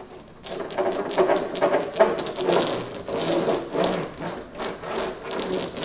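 Paddle roller worked back and forth over a resin-soaked glass-fibre bandage, giving a quick, uneven run of wet clicks and crackles. It is consolidating the GRP laminate, pressing the resin through the matting until the fibres disappear.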